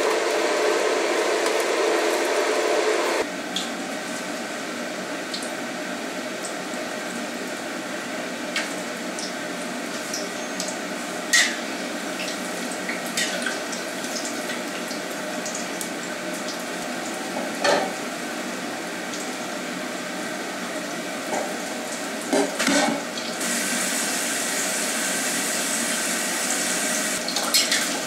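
Cornstarch-coated pork pieces deep-frying in hot oil: a steady bubbling sizzle with a few sharp clicks of a ladle stirring in the pan, the sizzle turning hissier about three-quarters of the way through. It is preceded by about three seconds of hands squishing and mixing the coated pork in a steel bowl.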